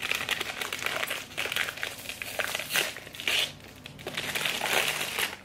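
A newsprint-patterned paper package bag being worked open by hand, crinkling and rustling unevenly, with louder crinkles about three seconds in and near the end.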